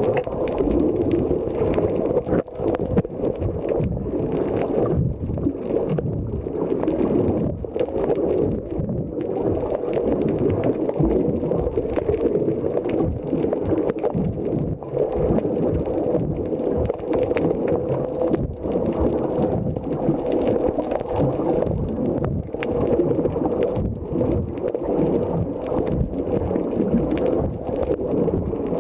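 Muffled, steady rumbling water noise picked up by a camera's microphone held underwater.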